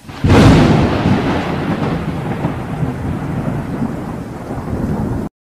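Thunder sound effect: a sudden loud crack followed by a long rumble that cuts off abruptly near the end.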